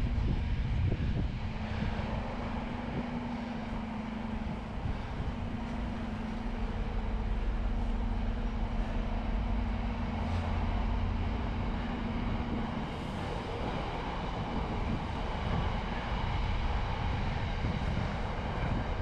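Riding noise from a bicycle on a canal towpath: a steady low rumble with wind on the microphone. A steady hum runs from about a second in and stops about thirteen seconds in.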